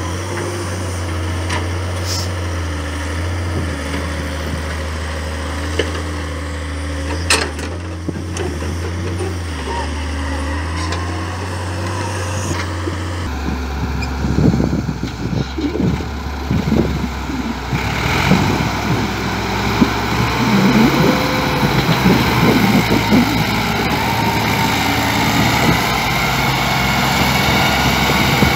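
Diesel engines running steadily while an excavator loads soil into a tractor trolley, with a couple of sharp knocks. Then a tractor's diesel engine works hard, its note rising and falling, as it pulls the heavily loaded trolley of soil away, belching black smoke.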